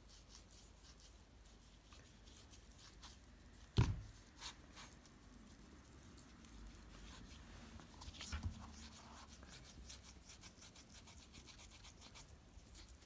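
Cotton pad rubbing back and forth over a cold-blackened steel hammer head, a faint, quick scrubbing. A sharp knock about four seconds in and a softer bump around eight seconds.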